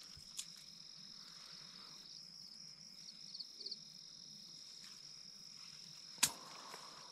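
Night crickets trilling steadily at a high pitch, with a sharp click about six seconds in.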